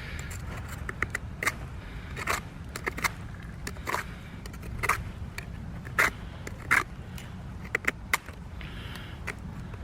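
Small multi-tool knife blade shaving curls off a cold wooden stick: short scraping strokes at an uneven pace, roughly one a second, over a steady low rumble.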